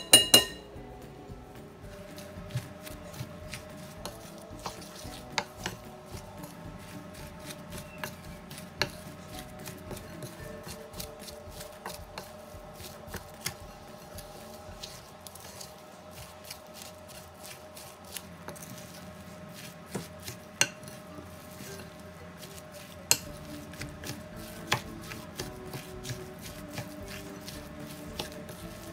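Wooden spoon stirring a thick grated-potato and flour mixture in a glass bowl: irregular knocks and scrapes of the spoon against the glass. There are a couple of sharp clinks of a metal spoon on the bowl right at the start. Faint background music with held tones plays underneath.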